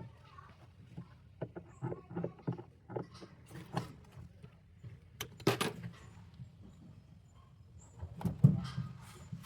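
Irregular clicks and knocks of parts and tools being handled during washing machine disassembly, with a louder knock about five and a half seconds in and another near the end.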